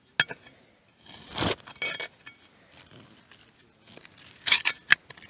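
Handling noises: a noisy scrape or rustle lasting about a second, and several sharp clinks, one near the start and a cluster near the end.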